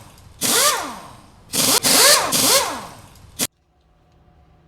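Engine revved in quick throttle blips, each rev rising and falling in pitch, in loud bursts that cut off abruptly with a click about three and a half seconds in, followed by faint low hum.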